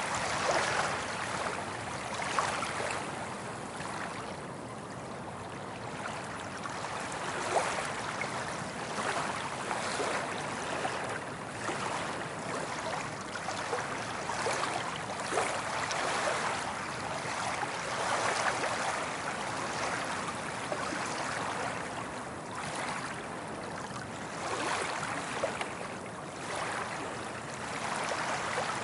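Soft ocean waves rolling in and washing up the beach: a steady hiss of surf that swells and eases every few seconds.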